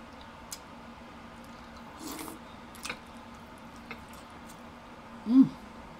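Mouth sounds of eating seafood: a few wet clicks and smacks as a piece is put into the mouth and chewed. Near the end comes a short, loud hummed "mmm" that rises and falls.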